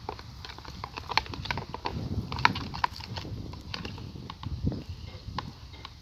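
Slime being stirred by hand in a plastic bowl as borax begins to set it: a run of irregular clicks and taps, with a couple of low thumps around two seconds and four and a half seconds in.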